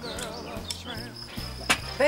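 Background music: steady low bass notes changing in steps under a wavering melody, with a thin high steady tone and a few sharp clicks.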